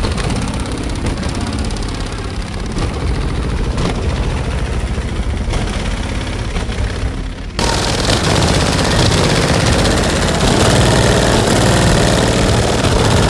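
Bass-heavy demo music from twelve Sundown ZV5 18-inch subwoofers in a van, heard from outside as a loud, dense low rumble. A little over halfway through it suddenly gets louder and fuller in the highs.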